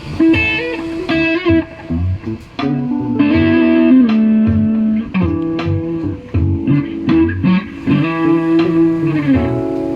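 Elegee Alab series Telecaster-style electric guitar played, a string of melodic single notes and held notes with clear overtones.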